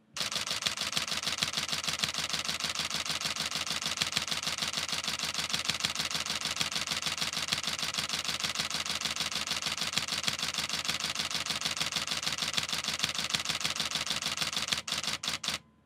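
Nikon D750 DSLR's shutter and mirror firing in a continuous high-speed burst, a rapid, even run of clicks at about six and a half frames a second, held down to fill the buffer in 14-bit RAW. Near the end a few separate clicks, then it stops suddenly.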